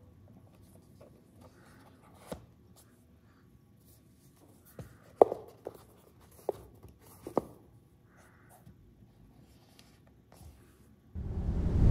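Light knocks and taps from hands fitting leather-covered dice cups into a hard-shell carrying case and closing its lid, the sharpest knock about five seconds in. A much louder, even noise comes in just before the end.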